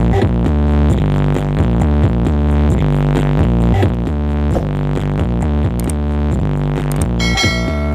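Electronic dance music with a heavy, rhythmic bass, played loud through a large horeg sound system of sixteen subwoofers. A bright high synth tone comes in near the end.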